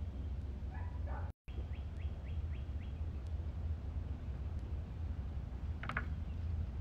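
A dog barks once, briefly, about six seconds in, over a steady low hum. Earlier comes a quick run of five short high chirps, about three a second.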